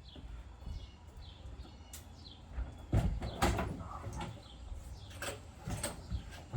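A few knocks and clatters, the loudest about three seconds in, over low wind rumble on the microphone, with birds giving short falling chirps.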